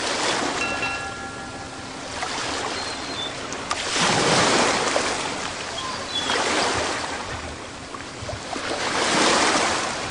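Ocean surf: waves breaking and washing in, the rush swelling and fading several times.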